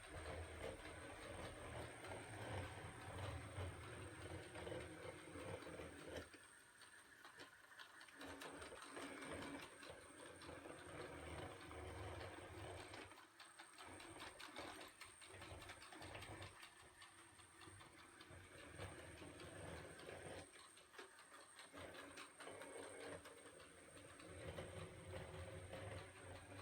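ILIFE robot vacuum running faintly, a steady thin high whine over a low motor hum that swells and fades every few seconds, with scattered soft clicks and ticks.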